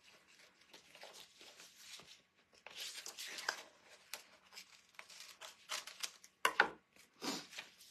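Small scissors snipping out a piece of a rub-on transfer sheet in a series of short, irregular cuts, with the sheet's paper backing rustling as it is turned in the hands.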